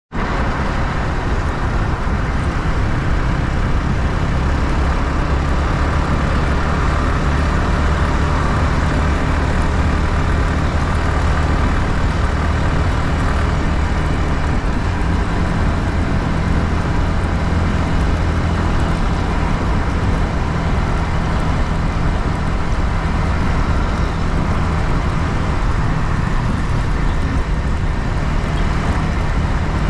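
Yamaha MT-15's stock-exhausted 155 cc single-cylinder engine running steadily, heard onboard while riding, with road and wind noise around it.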